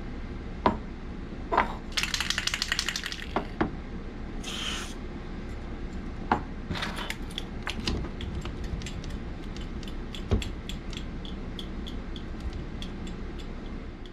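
Small metal clicks and rattles from a key being worked in a sticking deadbolt key cylinder of a keyless RV door lock: a quick rattling run of clicks about two seconds in, a short hiss near five seconds, then a long series of light clicks at about three a second near the end. The cylinder is bound up from corrosion and will not turn.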